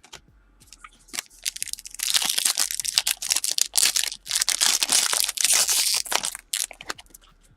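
Foil wrapper of a Panini Prizm retail trading-card pack being torn open and crinkled by hand: a dense run of crackling and crumpling lasting about six seconds.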